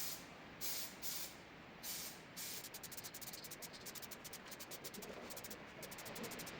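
Aerosol spray-paint can hissing in short bursts, followed by a fast, even, faint ticking.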